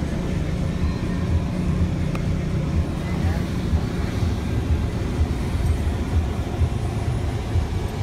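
Steady low engine and road rumble of a car driving slowly, heard from inside the cabin.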